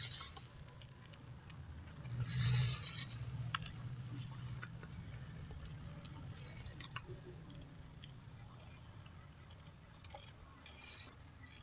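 MN99S RC crawler driving over rocks: its small electric motor and gearbox hum steadily, loudest about two to three seconds in, with a few clicks and scrapes of the tyres and chassis on stone.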